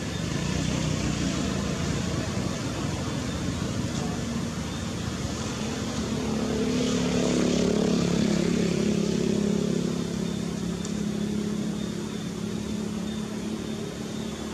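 A motor vehicle's engine running, growing louder about halfway through and then easing off, as if passing by.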